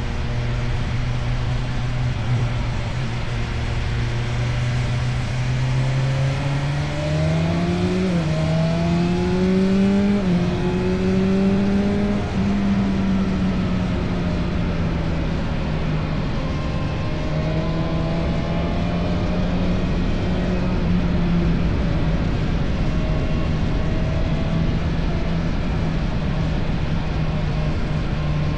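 Motorcycle engine through an Akrapovic exhaust, under way: steady revs, then the note climbs from about six seconds in with two short dips like gear changes, and holds high after that. Rushing wind noise runs underneath.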